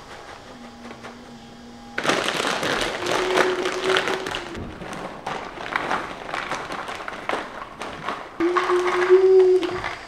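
Snack bags crinkling and handfuls of popcorn and chips rattling into a plastic divided container, starting about two seconds in.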